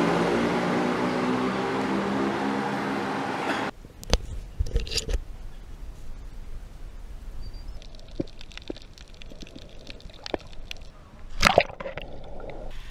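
A loud steady noise with a low hum cuts off abruptly, followed by scattered knocks and scuffs. Near the end comes a loud splash as a person plunges into water, then the dull, muffled sound of bubbling heard underwater.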